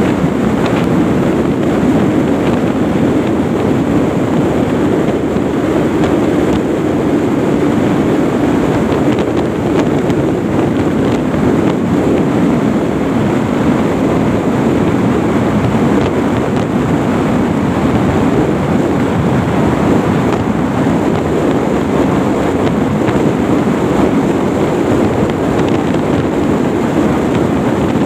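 Steady, loud wind rush over the microphone of a motorcycle cruising at highway speed, about 110 km/h, with the bike's running noise blended into it.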